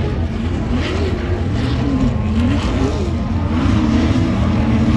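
Off-road race vehicle engines revving, the pitch swelling up and falling back again and again about every second, over a steady low rumble.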